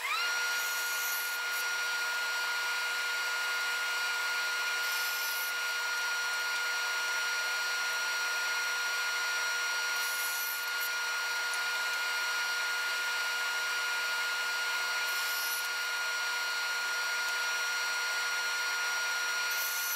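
Bandsaw running with a 10 teeth-per-inch blade, cutting hardwood segment wedges, in footage sped up four times: a steady high-pitched whine with a brief hiss of the blade through the wood about every five seconds.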